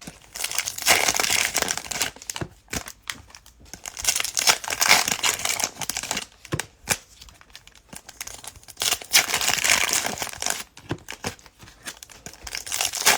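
Cellophane wrappers of trading-card cello packs crinkling and tearing as packs are ripped open by hand, in several bursts.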